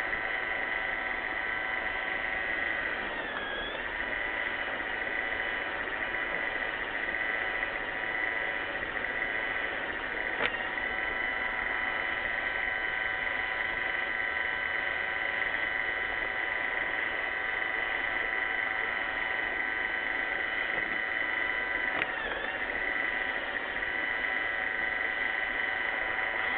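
Roomba 600 robot vacuum running: a steady motor whine over brushing noise. Its pitch dips briefly twice, and there is one sharp click about ten seconds in.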